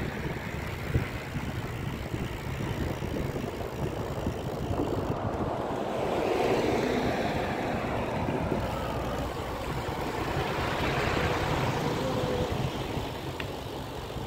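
Road traffic heard from a moving bicycle: wind rumbling on the microphone under the noise of a motor vehicle's engine and tyres, which swells louder about six seconds in and eases off near the end.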